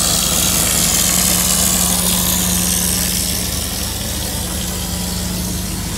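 Putzmeister S5 EV plastering machine running with a steady low hum, plaster spraying from the hose nozzle with a high air hiss that eases after about three seconds.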